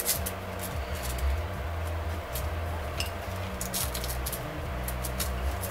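Light clicks and rattles of an aluminium multicopter arm being fitted into a frame plate by hand, scattered and irregular over a steady low hum.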